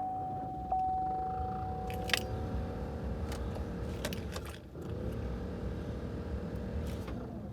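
Truck's starter motor cranking the engine in extreme cold on a jump starter pack, in two tries of about three seconds each with a short break between, the engine turning over without catching: a cold-weather hard start on a dead battery. A steady electronic chime tone sounds over the start and stops about two seconds in.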